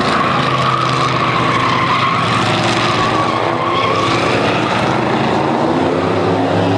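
V8 engines of a pack of Chevrolet Camaro and Pontiac Firebird race cars running hard as they pass and carry on down the track. A loud, steady drone with a high engine note held throughout.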